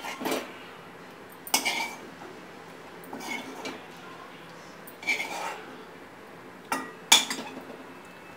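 Steel ladle scraping and knocking against a non-stick kadhai while scooping out thick gravy, in about five separate strokes, the sharpest knock near the end.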